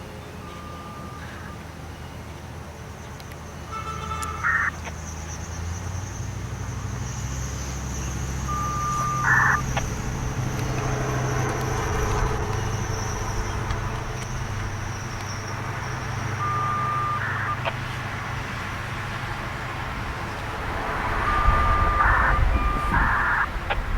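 Road traffic passing, with a low rumble that swells twice. Several times a short steady beep followed by a buzzy data chirp sounds over it: FSK data bursts coming through a radio scanner.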